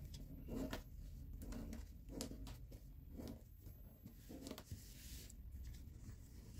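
Origami paper being folded and creased by hand, rustling and scraping in a series of short brushing strokes.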